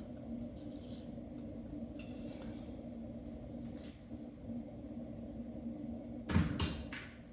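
Steady low hum of reef aquarium pumps. About six seconds in, two quick knocks, like a cabinet door bumping shut.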